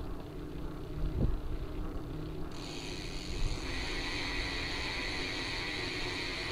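Riding noise from a fat bike with knobby tyres rolling on asphalt: a steady low rumble of wind and road on the microphone, with a short thump about a second in. A steady high hiss comes in abruptly partway through and grows stronger a second later.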